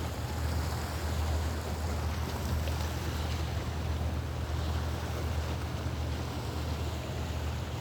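Wind rumbling steadily on the microphone over the constant wash of sea waves.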